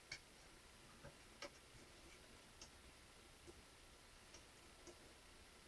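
Near silence with a few faint, irregular clicks as rubber loom bands are handled and stretched onto the pegs of a plastic loom.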